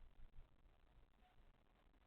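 Near silence: faint room tone, with two brief low bumps in the first half second.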